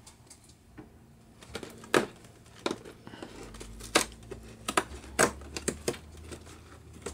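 A cardboard advent calendar door being pressed in and torn open along its perforations by hand: a run of irregular sharp clicks and taps with light crinkling of card.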